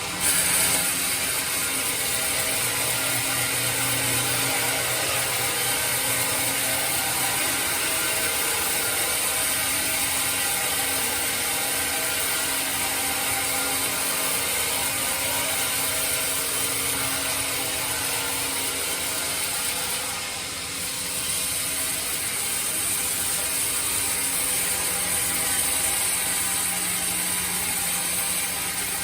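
Sawmill bandsaw running and cutting through hard teak, a steady mechanical drone with a high hiss from the blade in the wood. It gets louder just after the start and eases briefly about twenty seconds in before picking up again.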